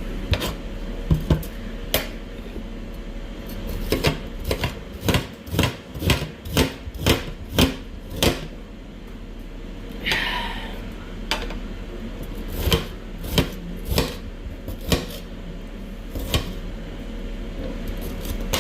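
A kitchen knife chopping on a chopping board: a run of sharp irregular knocks, quickest in the middle, with a short scrape about halfway through.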